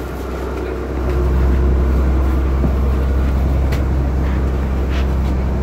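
Interior of a 2006 New Flyer D40i diesel bus underway: its Cummins ISL engine and driveline give a steady low rumble that gets louder about a second in, with a couple of light clicks from the cabin.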